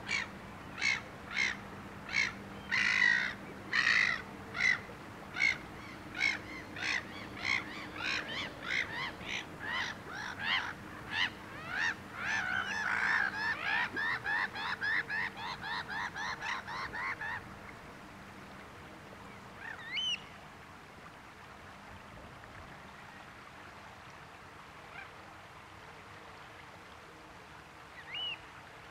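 A bird calling a long series of harsh repeated notes. They start at about one and a half a second, speed up to about three a second and stop after some seventeen seconds. Two short single rising calls follow later.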